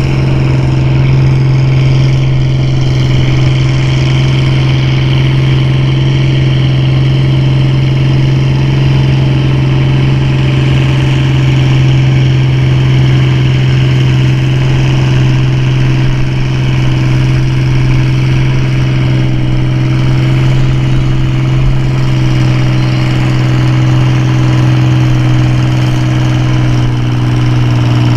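Farm-class pulling tractor's engine running loud and steady, holding one even pitch throughout.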